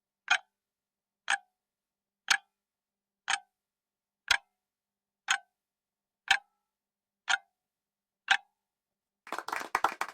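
Clock-ticking sound effect counting down a quiz timer, one sharp tick a second, nine ticks in all. About nine seconds in, a burst of applause sound effect takes over.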